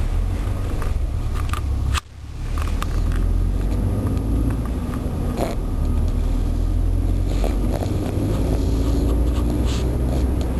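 Steady low rumble of a car driving, heard from inside the cabin. The sound drops out suddenly and briefly about two seconds in.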